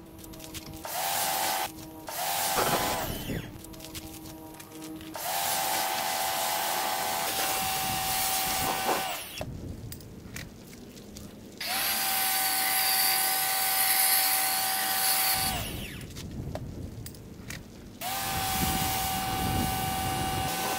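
Electric pressure washer switching on and off as the spray-gun trigger is squeezed and released, about five times. Each time the motor rises to a steady whine over the hiss of the water spray, then cuts off abruptly.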